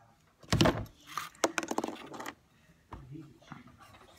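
A hammer knock on an Eaton Model 7 hydrostatic transmission, then a quick run of light metallic clinks and rattles as the housing and its input shaft are worked to free a stuck C-clip.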